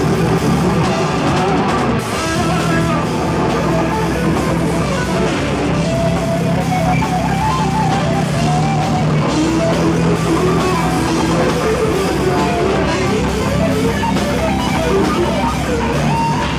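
A melodic death metal band playing live and loud: distorted electric guitars and a drum kit, with a lead guitar line winding up and down over them from a few seconds in.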